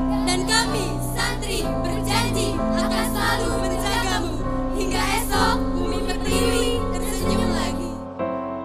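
Girls' choir singing over a sustained keyboard accompaniment; the voices stop about eight seconds in, leaving the accompaniment alone.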